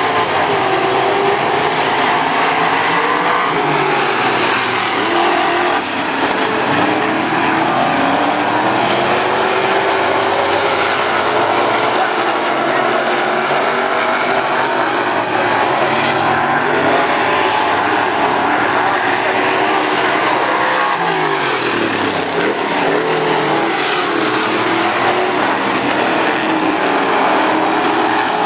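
A field of Super Street dirt-track race cars running around the oval, their engine notes rising and falling as cars pass.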